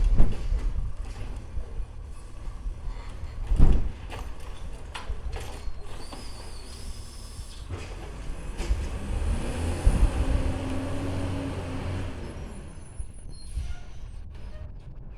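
Rapid-transit rail vehicle running, with a loud thump about four seconds in, a brief high squeal a few seconds later, and a hiss, like air brakes, swelling and fading near the middle.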